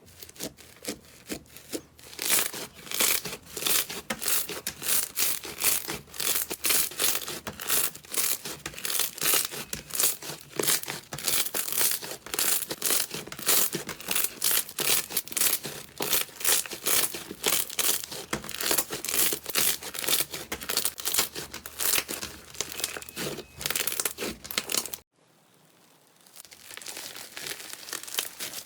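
Slime being squeezed and worked by hand, giving dense, fast crackling pops and clicks. It stops abruptly near the end, and softer crackling squishing starts again shortly after.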